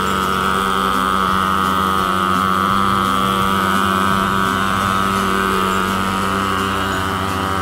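Portable thermal fogging machine running steadily with a loud engine drone while it spews dense white fog.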